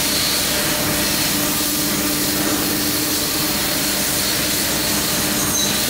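DECKEL MAHO DMC 635 V vertical machining centre running a face-milling cycle, its spindle turning with flood coolant on: a steady spray hiss over a constant machine hum.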